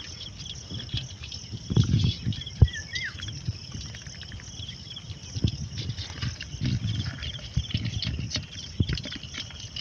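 A wet nylon trap net handled by hand, with irregular rustling and soft knocks as it is shaken out to empty the catch. A steady high chirring runs behind it, and a short whistled call comes about three seconds in.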